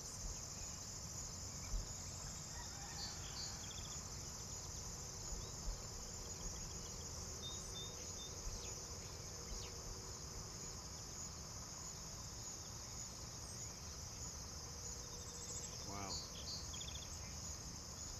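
Steady chorus of crickets and other insects in a rural field. A few brief, faint low thumps are heard, the clearest about two seconds in and again about five seconds in, and a few short chirps come through on top.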